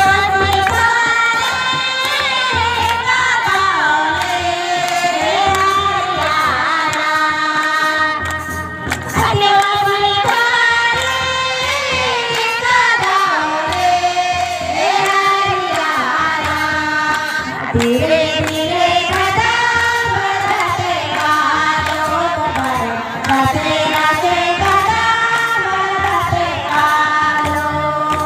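A group of women singing a Sarna devotional song to Sarna Maa together, one voice on a microphone, with hand clapping keeping time.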